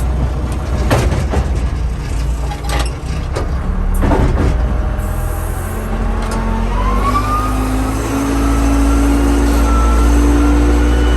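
Case 580C backhoe's diesel engine running, with several sharp metal clanks in the first half. A rising whine comes about seven seconds in, and then the engine speeds up and holds at higher revs.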